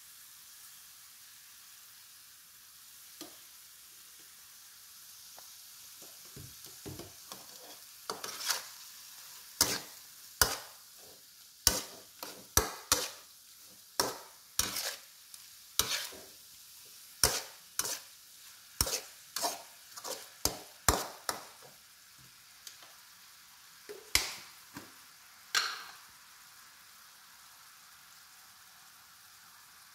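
Meat sizzling in a steel wok, while a spatula scrapes and knocks against the pan in sharp strokes about once a second. The strokes run from about six seconds in to about twenty-six seconds, leaving only the steady sizzle.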